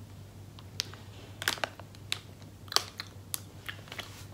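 Chewing a jelly bean: a handful of short, wet mouth clicks, irregularly spaced, over a low steady hum.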